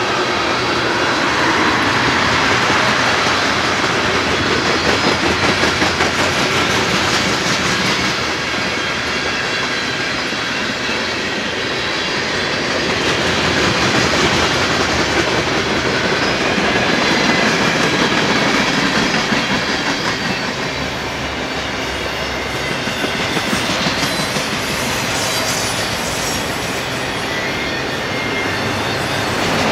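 Cars of a long BNSF freight train rolling past, steel wheels clicking rhythmically over the rail joints with a continuous rumble.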